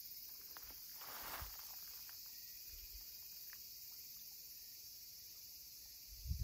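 Faint, steady high-pitched chirring of insects, with a few faint clicks and a brief rush about a second in.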